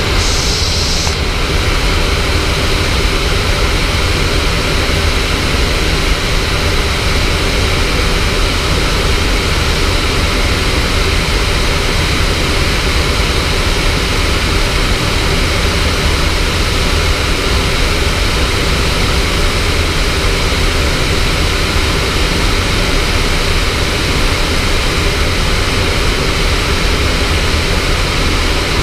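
Steady rush of airflow over a glider's canopy in flight, heard inside the cockpit, with a strong low rumble and a brief higher hiss in the first second.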